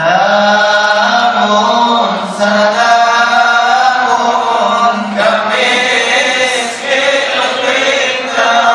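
A voice singing a slow Arabic qasida in long, drawn-out melismatic notes over a steady low drone.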